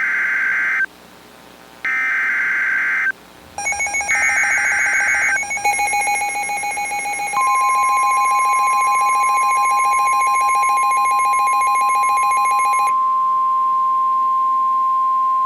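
NOAA Weather Radio alert sequence: three short screeching bursts of SAME digital header data, then the steady 1050 Hz warning alarm tone held for about nine seconds, announcing a new warning. A second, buzzy pulsing alarm tone starts with the third burst and stops a few seconds before the steady tone ends.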